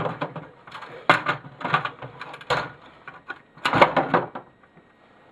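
Hard plastic and metal printer parts knocking and clattering as they are handled while a small motor is pulled free, several sharp knocks in the first four seconds or so.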